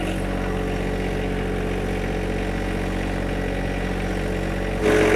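John Deere 1025R compact tractor's three-cylinder diesel engine running steadily as the tractor drives forward, growing louder near the end.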